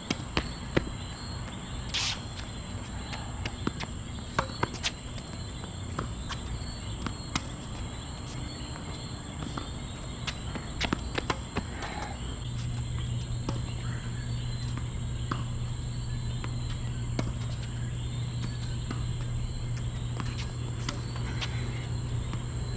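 Tennis balls popping off racket strings and bouncing on a hard court during a rally, as sharp irregular hits scattered throughout. Under them runs a steady high insect chirr, and a low hum comes in about halfway through.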